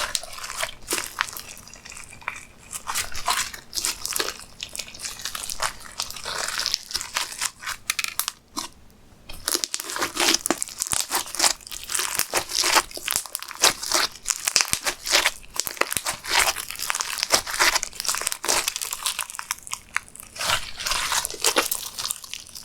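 Hands kneading and squishing slime, a dense run of sticky clicks, crackles and pops, with a brief lull about eight and a half seconds in.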